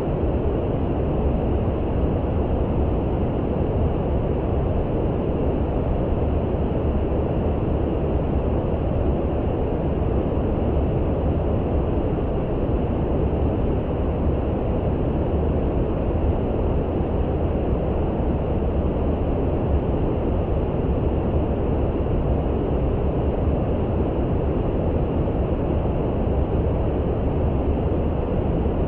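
Steady brown noise: an even, deep hiss, heaviest in the low end, that does not change.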